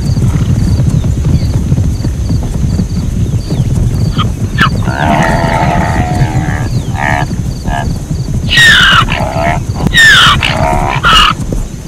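Zebra calling: a series of barking, braying calls that begins about four seconds in, with the loudest calls near the end falling in pitch. A steady low rumble runs underneath.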